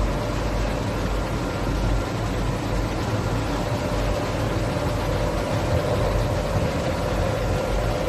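Glass washing machine of an insulating-glass production line running: a steady machine drone, a low rumble with a constant mid-pitched hum over it.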